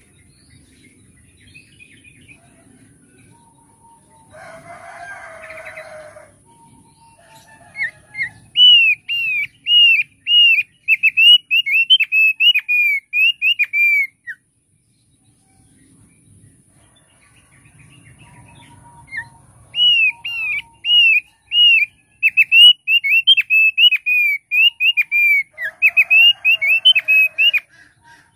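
Thick-billed heleia (opior paruh tebal) singing two loud bouts of rapid, clear whistled notes, each note a quick up-and-down slur, a few notes a second; the first bout stops about fourteen seconds in and the second starts about five seconds later.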